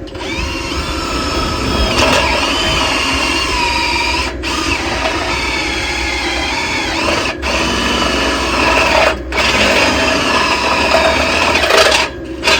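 Power drill with a step bit cutting through a steel post, a steady metallic whine running in long spells with brief stops about four, seven, nine and twelve seconds in.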